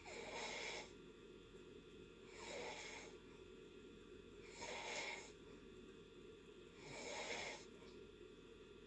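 Soft snoring in deep sleep: four slow, noisy breaths about two seconds apart.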